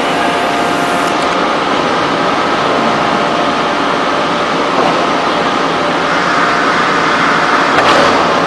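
Forging shop machinery of a hydraulic forging press and manipulator running: a loud, steady noise with a faint whine, and a few sharp clicks near the end.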